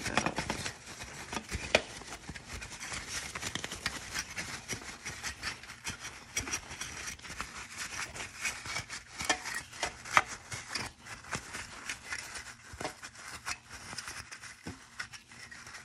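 Paper towel rubbing and rustling against a clear plastic nail-tip case as it is wiped out, with irregular small plastic clicks and taps from the case being handled.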